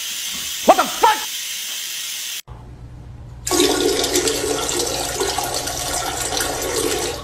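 Toilet flushing: a loud rush of water from about three and a half seconds in. Earlier, about a second in, two short chirp-like calls.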